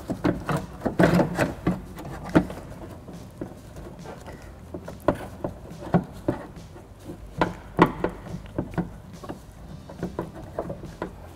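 Irregular light clicks and knocks as a car door latch and its linkage rod are handled and worked into place inside the door shell.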